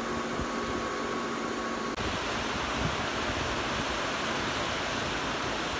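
Steady hiss of workshop background noise, like fans or air conditioning running. A faint hum under it cuts off abruptly about two seconds in, and the hiss carries on slightly louder.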